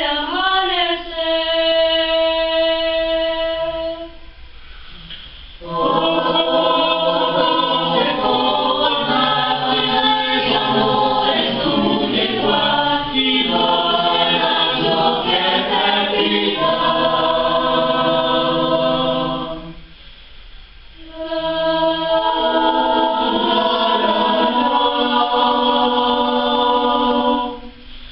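Mixed school choir of teenage girls and boys singing a cappella in held chords, phrase by phrase. The singing breaks off briefly between phrases, about four seconds in and again about twenty seconds in.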